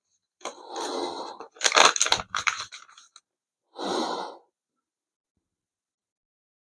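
Paper packet of a sterile gauze compress being torn open and the wrapper rustling, in a few short bursts over the first three seconds, with one more short hiss about four seconds in.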